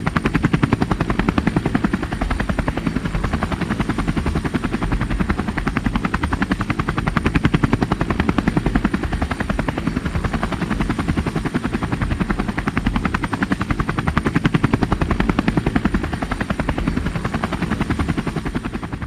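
Train rumbling past close by: a loud, steady, rapid pulsing with a deep rumble and a thin high whine over it, fading away at the very end.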